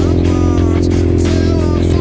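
Rock music with guitar, with an ATV engine running underneath.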